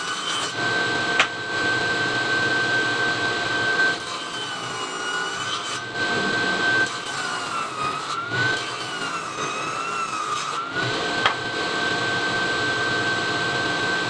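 Circular saw running and cutting through wood. Its motor whine holds steady, then sags and wavers in pitch for a few seconds in the middle as the blade takes load. Two sharp clicks are heard, one about a second in and one near the end.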